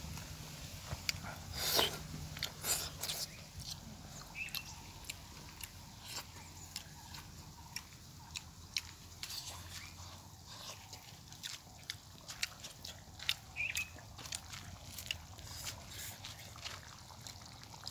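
Close mouth sounds of eating chicken curry by hand: irregular chewing, lip smacks and small wet clicks as meat is pulled off the bone and eaten.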